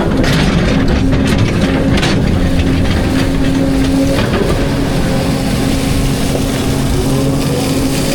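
Volvo EC220E excavator running under load: steady diesel engine and hydraulic hum with a held whine, and a few sharp knocks and scrapes of the bucket in rock, mostly in the first half.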